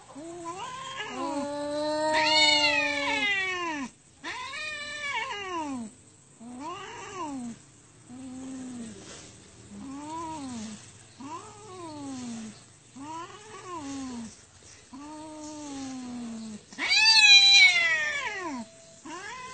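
Two domestic cats caterwauling at each other in a fight standoff: drawn-out, wavering yowls that rise and fall in pitch, repeated about every second and a half. The first one swells loudest about two seconds in, and another loud, higher yowl comes near the end.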